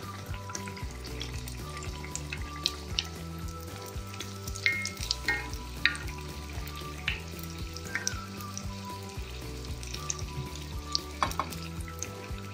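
Gram-flour-battered raw banana slices deep-frying in hot oil: a steady sizzle and crackle with scattered sharp pops, while a steel spoon scoops oil over the top of them.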